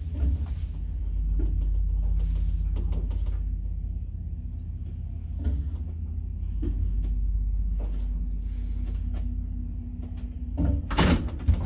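A 1930s Wertheim passenger lift travelling up the shaft on its single-speed drive: a steady low rumble with occasional clicks and knocks, and a burst of louder knocks near the end.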